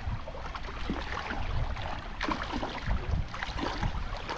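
Pond water sloshing and splashing as someone wades slowly through the shallows, with a few sharper splashes in the second half.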